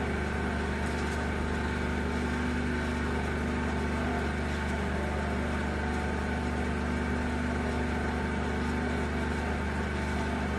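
Vacuum pump running steadily with an even hum as it draws down the sealed, empty mixer vessel, nearing its designed vacuum.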